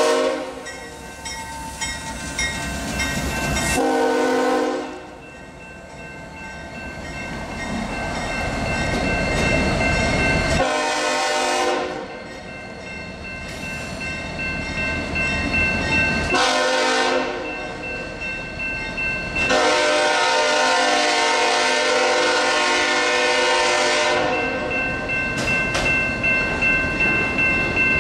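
Freight train passing close by: a Union Pacific locomotive, a Ferromex locomotive and autorack cars rumbling along street-running track. The lead locomotive's horn sounds several short blasts, then one long blast of about four seconds. Wheels clatter over the rail joints near the end as the autoracks go by.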